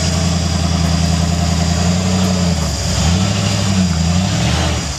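1979 Ford Bronco rock crawler's engine running at low revs as it crawls over boulders, the revs rising and dipping a few times in the second half, then dropping away near the end.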